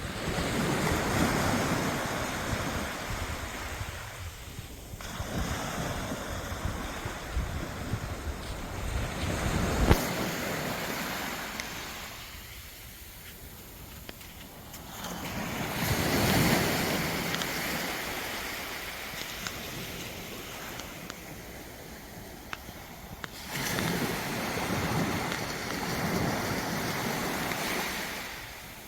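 Sea waves washing onto the beach, the surf noise swelling and ebbing in several surges several seconds apart. There is a single sharp knock about ten seconds in.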